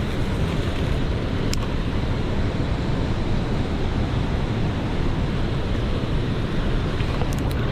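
Steady rushing of water pouring through a lock-and-dam spillway, a dense unbroken noise heaviest in the low end, likely with some wind on the microphone.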